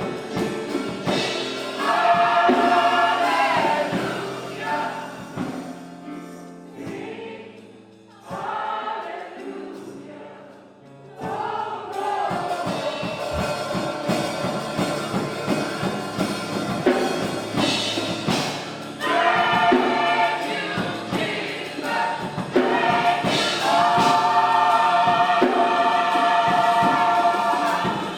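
Gospel choir singing with instrumental accompaniment, softening for a few seconds about a third of the way through and then swelling back to full voice.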